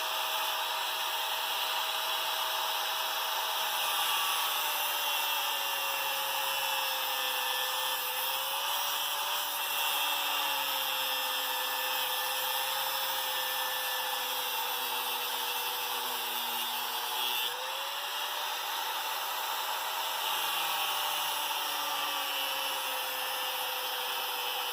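A power tool runs continuously, cutting a section out of a backhoe tire chain that is too long for the tire. Its whine sags slowly in pitch, jumps back up about three-quarters of the way through, then sags again.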